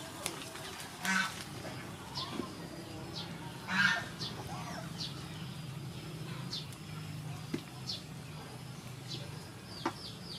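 Waterfowl calling twice, about a second in and again near four seconds, while a small bird chirps repeatedly at a high pitch. A couple of sharp clinks come later as a ladle scoops soup from a metal pot.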